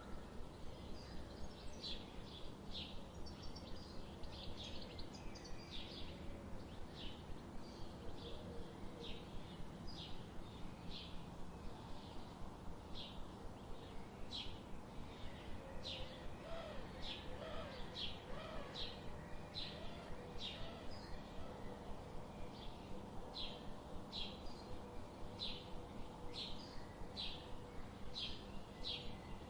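Budgerigars chirping: short high chirps repeated about twice a second, with some softer, lower warbling around the middle, over steady background noise.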